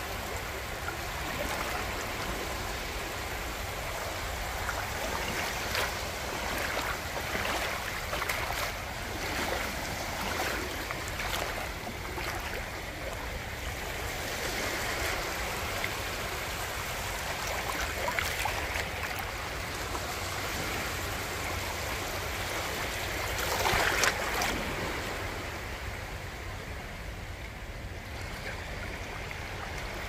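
Small, soft Black Sea waves lapping and breaking at the water's edge: a continuous wash and fizz that swells and eases every few seconds, with one louder splash about three-quarters of the way through.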